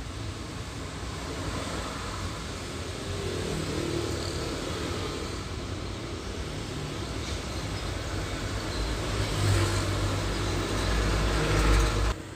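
Road traffic passing close by: cars, motorcycles and a bus go by with a steady tyre-and-engine noise. A heavy vehicle's low engine rumble builds over the last few seconds and is the loudest part, then the sound cuts off suddenly near the end.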